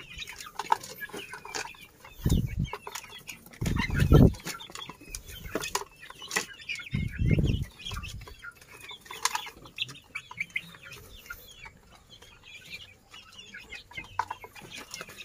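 Indonesian native (kampung) chickens and chicks clucking and peeping while feeding, with scattered short clicks and three louder low thumps about 2, 4 and 7 seconds in.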